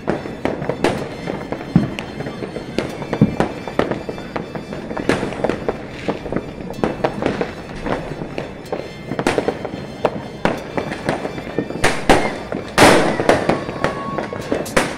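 Fireworks and firecrackers going off all around the neighbourhood: a continuous, irregular crackle of many pops and bangs, with a run of louder booms near the end.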